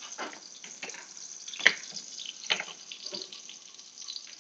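Steak frying in oil under the lid of a wok: a steady sizzle with irregular crackles and pops, and a few sharper clicks, the loudest a little under two seconds in.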